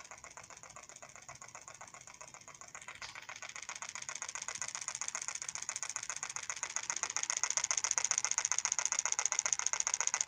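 Homemade solenoid engine with a flywheel, its generator coil's output looped back into the drive coil and running off a charged supercapacitor: a fast, even clicking from each pulse of the solenoid. The clicking grows louder over the first seven seconds.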